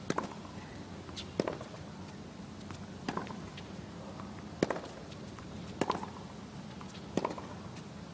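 Tennis ball struck back and forth by rackets in a baseline rally, a sharp pock about every one and a half seconds, over a low steady background hum.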